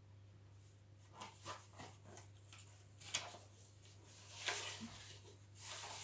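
Faint, scattered rustles and light taps, a few separate ones about a second apart, over a steady low hum.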